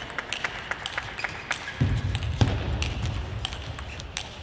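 Table tennis ball clicking off bats and the table: many sharp, irregular ticks. A low rumble joins from about two seconds in, with one louder knock about halfway through.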